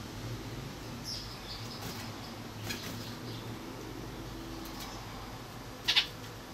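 Small caged finches (Gouldian finches and waxbills) giving a few short, high chirps, with a louder sharp double chirp near the end. A low steady hum runs underneath.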